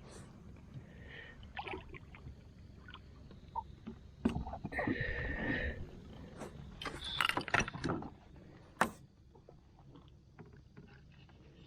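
Scattered knocks, clicks and rattles from handling gear in a kayak, with a sharp knock a little before the end.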